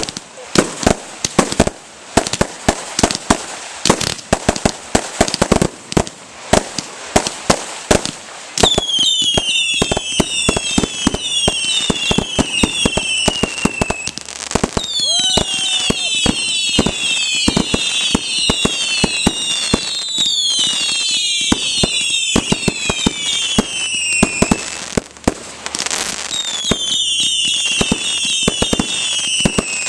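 Fireworks display: a rapid run of sharp bangs, then from about nine seconds in waves of many overlapping whistling fireworks, each whistle falling in pitch, with bangs continuing throughout.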